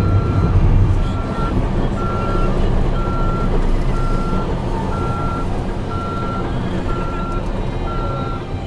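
Bulldozer backup alarm beeping steadily about once a second, the sign that the Cat D8T is reversing, over its diesel engine running under load. The engine is heaviest in the first second, then eases.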